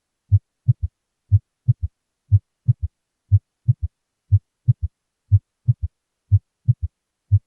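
Human heart heard through a stethoscope at about 60 beats a minute, each beat a group of three short low thumps: the first and second heart sounds, with the second unsplit, followed closely by a physiologic third heart sound early in diastole. Together they give a gallop cadence, a pattern heard on occasion in normal individuals with no cardiac pathology.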